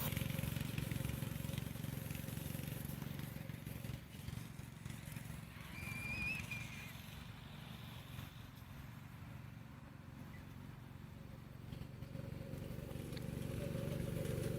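Small go-kart engine running, its hum fading as it moves off and growing louder again as it comes back near the end.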